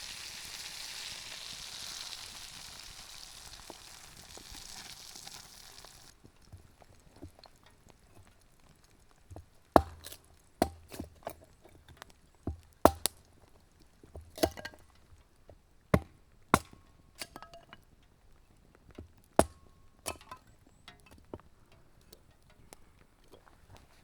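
Butter and food sizzling in a frying pan, a steady hiss that cuts off abruptly about six seconds in. Then come a dozen or so sharp knocks and clinks of cooking utensils against a pan, spaced unevenly, some ringing briefly.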